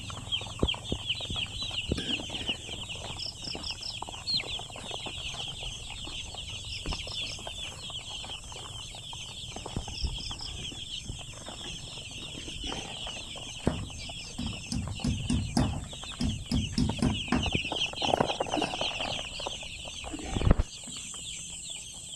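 A large flock of chickens in a poultry house, many birds cheeping at once in a dense, continuous high chatter. Knocks and clatter join in during the second half, with one loud thump near the end.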